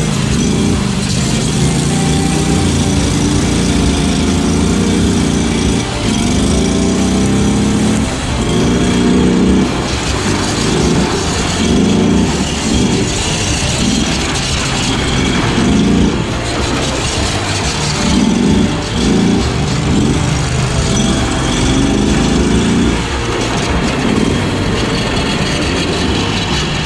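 Predator 670cc V-twin engine of a chain-driven riding mud mower running under load, revving up and easing off repeatedly with the throttle about a third of the way in and through most of the rest.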